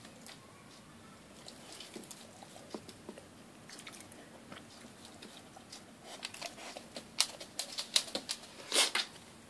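Dog licking and chewing the last bits of food from a glass dish, with small wet clicks. Near the end comes a quick run of sharp clicks and knocks, the loudest just before the end.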